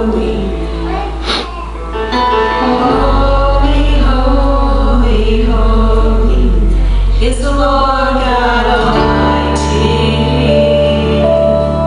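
A boy and a woman singing a gospel song together into microphones over instrumental accompaniment. Sustained low bass notes change about three seconds in and again about nine seconds in.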